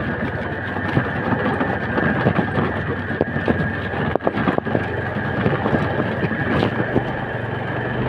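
Motorcycle being ridden over a rough unpaved track, its engine running under a steady rush of noise, with many knocks and rattles from the bumps.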